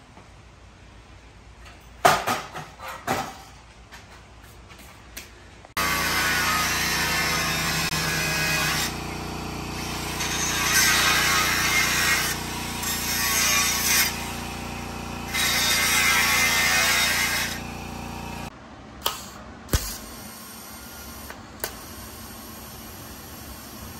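A few metal clanks, then an angle grinder with a cut-off wheel cutting steel for about twelve seconds, running at a steady pitch while the cutting noise swells and fades as the wheel bites. It stops suddenly and leaves a low steady hiss with a few clicks.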